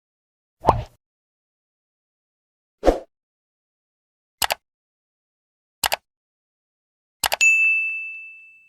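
Subscribe-button animation sound effects: two soft pops, then two quick double mouse clicks, then a click and a notification-bell ding that rings out and fades.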